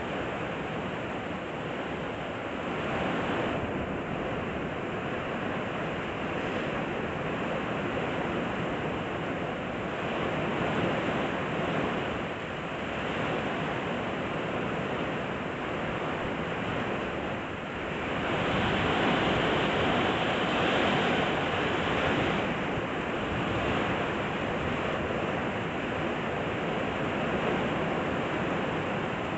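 Storm wind and heavy rain: a steady rushing noise that swells in gusts, loudest about two-thirds of the way through.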